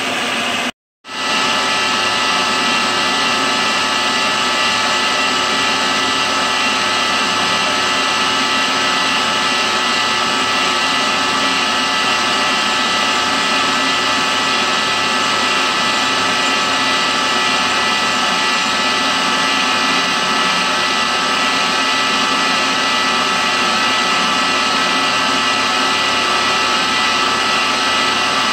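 CNC milling machine with an end mill cutting cast iron: a steady cutting noise with several high held tones. It cuts out briefly just under a second in, then runs on unchanged.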